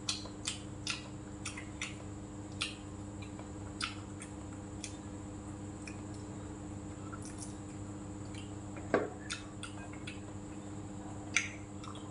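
Chopsticks and a spoon clicking against bowls and plates while eating, with frequent small clicks in the first few seconds and two louder clacks later on. An electric fan hums steadily underneath.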